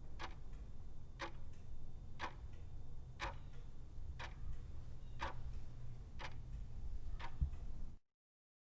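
Clock ticking steadily, once a second, eight ticks in all, over a low steady hum.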